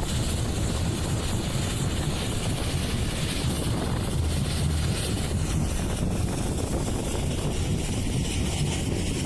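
Heavy machinery running steadily: a constant low engine drone under a wash of mechanical noise, with no breaks or impacts.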